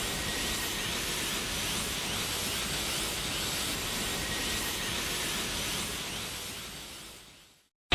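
Dragon Ball Super energy sound effect: a steady hissing rush with faint, quickly repeating high sweeps, starting abruptly and fading away over its last two seconds.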